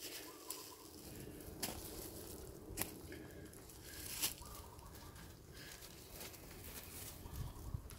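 Quiet outdoor ambience around long-tailed macaques on dry leaf litter: a low rumble, three sharp clicks and light rustles as the monkeys shift about, and a few faint short high calls.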